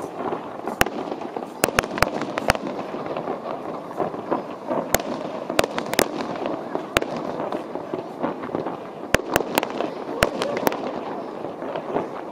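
Fireworks display: sharp bangs of aerial shells bursting at irregular intervals, sometimes two or three in quick succession, over a steady background din.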